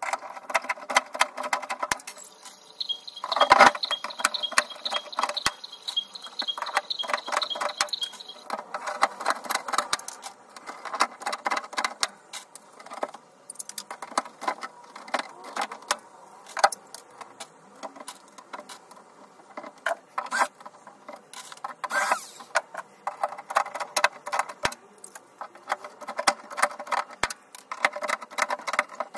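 Workshop hand-tool work on a case: a dense run of small mechanical clicks and taps, with a steady high-pitched whine from about three to eight seconds in and a louder knock about three and a half seconds in and again near the end.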